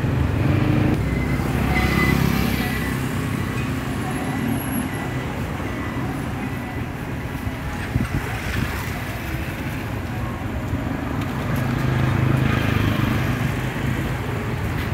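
Road traffic noise: a steady hum of passing vehicle engines and tyres, swelling a little near the end.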